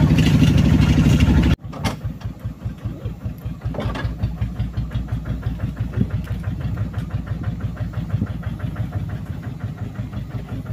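People talking for about the first second and a half, then a cut to the motorcycle engine of a motor lori (rail trolley) running with an even, rapid beat.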